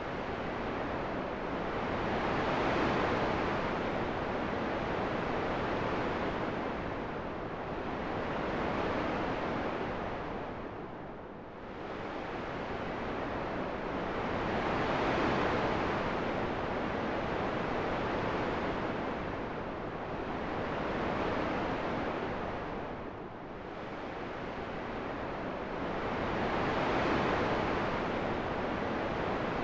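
Wind sound: a steady rushing noise that swells and eases in slow gusts every few seconds, dipping more deeply about every twelve seconds.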